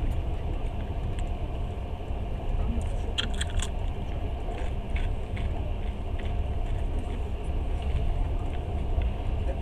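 Passenger train running at speed: a steady low rumble of the carriage in motion, with a short cluster of sharp clicks about three seconds in.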